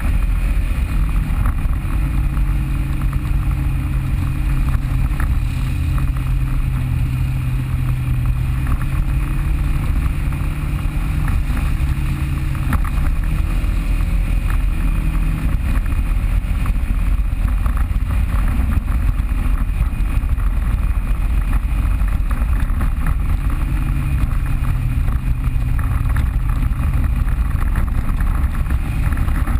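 Off-road vehicle engine running steadily while driving a trail, its pitch drifting a little lower and higher, over a constant rushing hiss.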